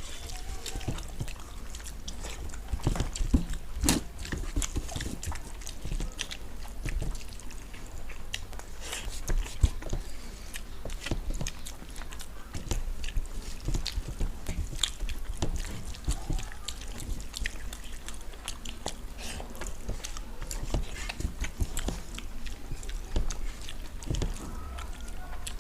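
People eating rice and masala fried fish with their hands: irregular chewing and mouth clicks throughout, with a couple of sharper clicks about four seconds and about ten seconds in.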